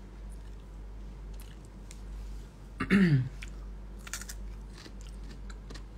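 Crunching bites and chewing of a raw peeled carrot close to the microphone, with sharp crisp crunches about four seconds in. About halfway through, a brief low hum of voice falls in pitch and is the loudest sound.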